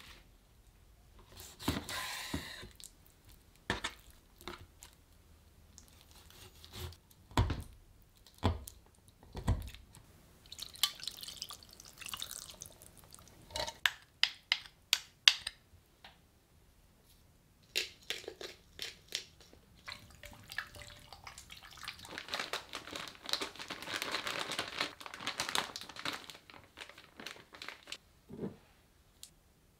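Kitchen prep sounds: raw chicken pieces handled with wet squishing and dripping, soaked in milk in a glass bowl, among scattered knocks and clinks on a wooden table.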